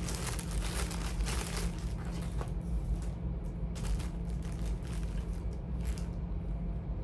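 Charging cords being handled in a bag, with irregular rustling and crinkling, busiest in the first two seconds and again briefly a few times later.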